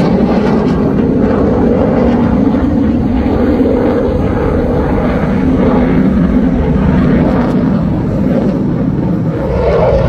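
F-16 fighter jet's engine heard from the ground as the jet flies a display overhead: a loud, steady rumble, swelling a little near the end.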